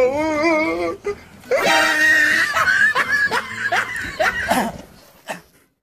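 Several people laughing loudly without words. A drawn-out, wavering laugh comes first, then a louder burst of mixed voices about a second and a half in, which dies away near the end.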